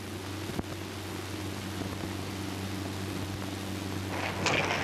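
Steady hiss and low hum of a 1930s optical film soundtrack, with a faint click about half a second in. Louder scratchy rustling comes in near the end.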